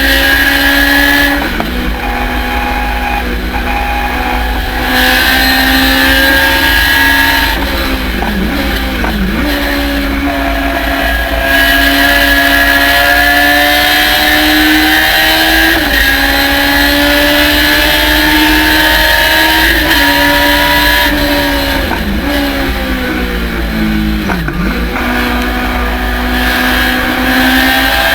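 Race car engine running hard at high revs, its pitch climbing slowly and dropping sharply and briefly about six times as the car shifts gears or lifts for corners.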